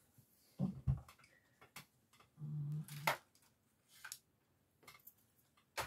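Craft supplies being handled on a tabletop: a couple of low knocks just under a second in, a short low hum a little later, and light clicks and taps.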